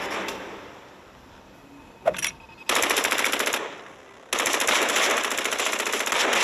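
Rapid automatic gunfire in two bursts: a short one of about a second, starting near the middle, and a longer one starting about four seconds in. A single sharp crack comes just before the first burst.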